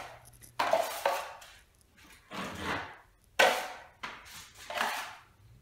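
A wide drywall taping knife scraping across a painted popcorn ceiling as joint compound is skimmed on, in four separate swipes, each starting sharply and trailing off.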